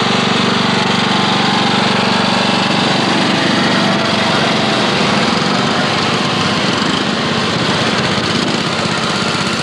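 Small engine of a three-wheeled ATV running as it drives past close by. Its steady engine note breaks up and turns rougher about three seconds in as it moves off.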